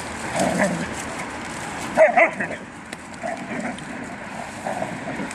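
Hairless dogs playing rough, with a short loud bark about two seconds in.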